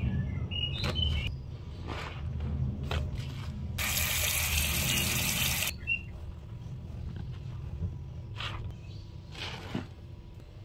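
Sponge squeezed and worked in a sinkful of soapy water: wet squelches and squishes, with a louder rush of water for about two seconds near the middle.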